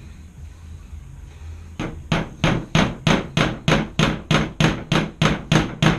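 Hammer blows driving a fastener into the wood of an old dresser: a quick, even run of strikes about three a second, starting about two seconds in.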